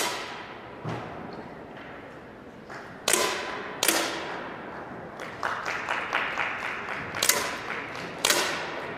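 Air pistol shots in an indoor hall: five sharp cracks with echoing tails, two close together about three seconds in and two more near the end. A patter of light taps runs between the later shots.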